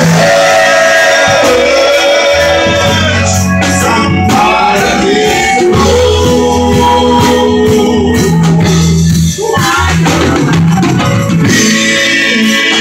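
Live gospel music, loud: singers on microphones over a band of drums and keyboard.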